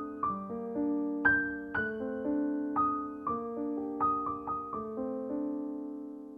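Background piano music: single notes struck over held chords, each note fading away after it is struck.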